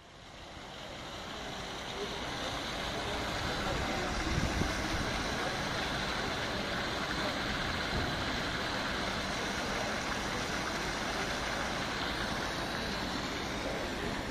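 Steady drone of an engine-driven pump pumping out floodwater through hoses. It fades in over the first couple of seconds, then runs at an even level.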